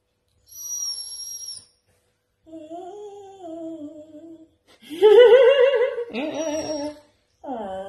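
Husky 'talking': a thin high whine about half a second in, then a soft wavering moan, and a louder warbling 'woo-woo' howl from about five seconds in.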